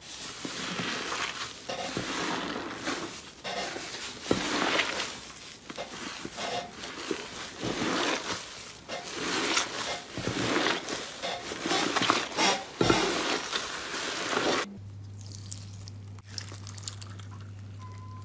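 Crinkly, crackling sounds of a crunchy material being pressed and worked by hand, in irregular strokes with sharp clicks. About fifteen seconds in it cuts abruptly to a steady low hum with a few faint ticks.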